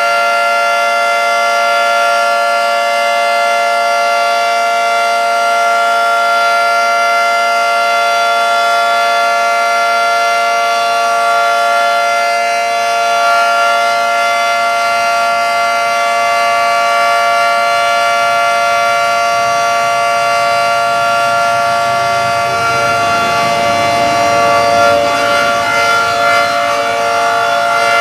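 Federal Signal 2T22 dual-tone outdoor warning siren sounding a steady, unwavering chord at full speed for its monthly test. About three-quarters of the way through, a low rumble rises beneath it.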